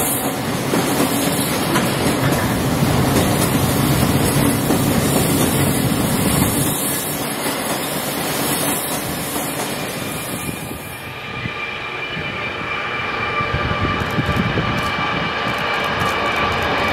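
A train passing close by, with the steady rolling noise and clatter of wheels on rail. About two-thirds of the way through the sound changes abruptly to a locomotive engine with a steady high whine over it.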